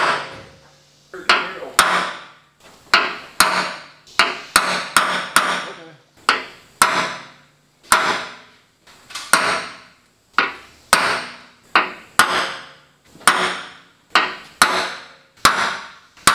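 Hammer striking a center punch on a semi truck's half fender: about two dozen sharp ringing blows, often in quick pairs, marking a hole position for drilling.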